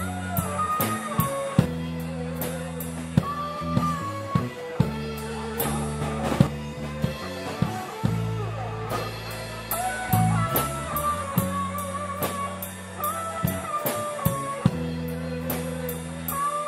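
Live rock band playing: an electric lead guitar holds and bends long notes over a drum kit keeping a steady cymbal beat, with sustained low notes underneath.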